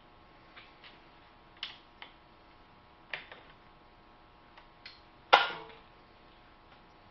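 Metal clicks and short scrapes from hand-filing a Husqvarna chainsaw chain in a bar-mounted sharpening jig, about eight at irregular intervals. The loudest comes about five seconds in and rings briefly.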